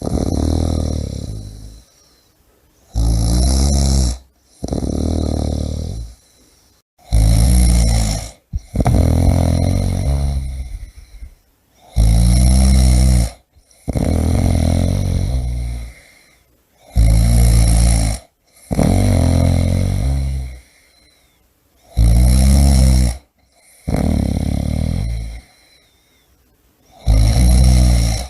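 A person snoring loudly in a steady rhythm, about one breath every five seconds: each cycle is a short, loud, low snore followed by a longer one that fades away, with quiet gaps between breaths.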